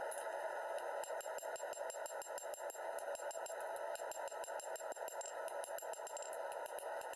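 Hand hammer striking the red-hot steel sword blade on the anvil in a quick, steady run of blows, about four a second, drawing out the edge bevel over a steady hiss.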